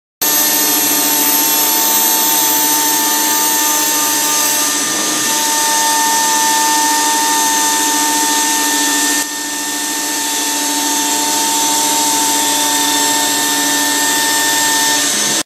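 CNC machine spindle running at a steady speed while milling a 3D contour into Mic6 cast aluminium plate: a steady high whine over a constant cutting hiss, with a brief dip in level about nine seconds in.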